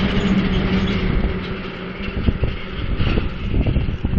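A large tanker truck passes close by. Its engine drones steadily for about a second, then fades into rumbling, gusty noise with irregular low thumps.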